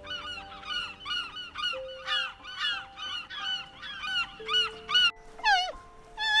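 An animal's short, pitched calls repeated about two to three times a second, the last few near the end longer and louder, over soft background music.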